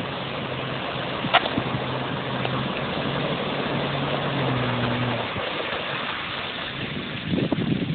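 A 4x4 off-roader's engine running steadily as it drives through muddy water, its note rising briefly about four seconds in before fading, over a steady wash of water noise. Wind buffets the microphone near the end.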